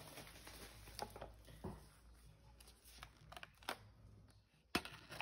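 Faint, scattered wooden clicks and knocks from a bamboo bathtub tray being handled, with some light rustling in between.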